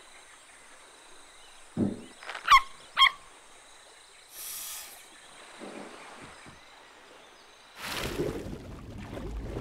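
Cartoon sound effects over a faint steady forest background: a soft knock about two seconds in, then two quick sliding chirps, and a short hiss near the middle. A louder rushing noise with a low rumble starts near the end.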